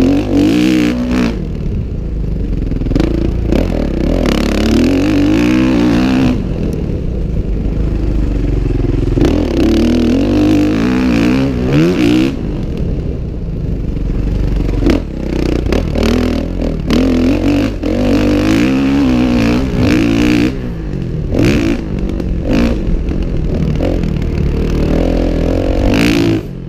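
Motocross dirt bike engine heard close from the rider's own camera, revving up and falling back again and again as it is ridden hard round the track, with clattering knocks from the bike over rough ground.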